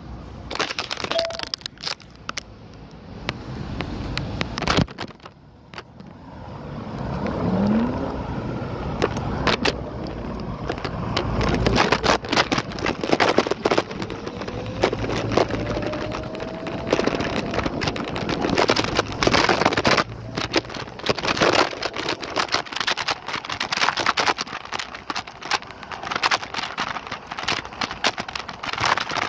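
Lime rental electric scooter being ridden, rattling and clicking over an uneven road surface amid road noise. A faint rising whine comes in partway through.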